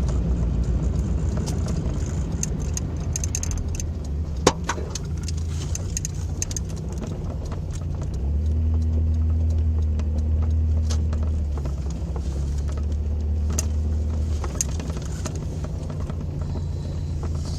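Toyota pickup truck driving, its engine running with a steady low hum that grows louder from about eight to eleven seconds in. A sharp click comes about four seconds in, with light ticks and rattles over the hum. The leaking exhaust header is patched with exhaust wrap.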